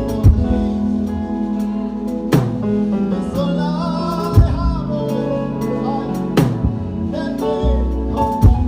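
Gospel worship band music with drum kit, bass and sustained chords, with strong drum accents about every two seconds.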